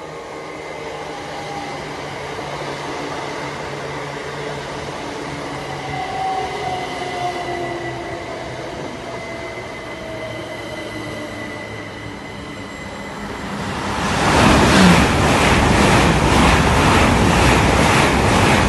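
GWR Class 387 electric multiple unit passing through a station at speed: a rising hum with a faint motor whine that slides down in pitch as it approaches, then, about fourteen seconds in, a loud rush and a rhythmic clatter of wheels over the rail joints as the carriages pass close by.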